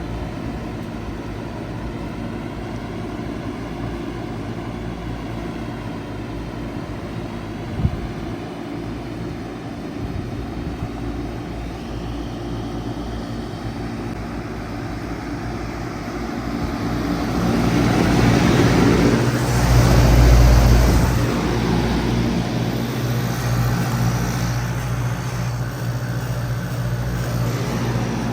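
A 2000 four-ton Bard wall-hung heat pump starting up in cool mode: a steady electrical hum, a sharp click about eight seconds in, then the unit's running noise swells up with a deep low rumble about eighteen to twenty seconds in and settles into a steady, louder run.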